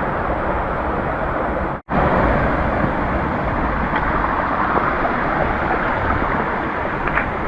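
Mountain stream rushing: a steady, loud water noise, broken by a split-second dropout about two seconds in.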